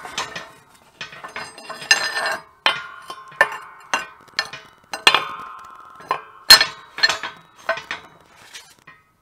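Steel plate and rebar broach clanking and clinking against the steel press blocks of a shop press as the freshly punched plate is handled, a dozen or so sharp metal knocks, some leaving a short ring, the loudest about six and a half seconds in.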